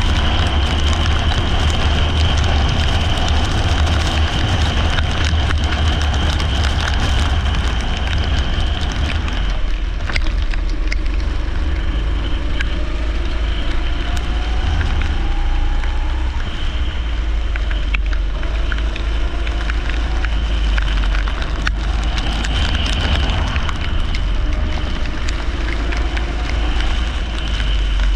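Leisure (rental) kart engine running hard, its pitch rising slowly several times as it pulls out of corners, over a steady hiss of rain and spray from the wet track.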